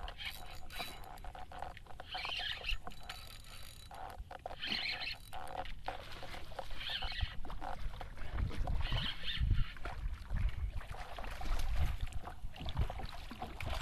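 Fishing reel being cranked in short bursts, roughly every two seconds, while a hooked redfish is fought from a kayak. Water and low rumbling noise grow louder in the second half as the fish is worked toward the boat.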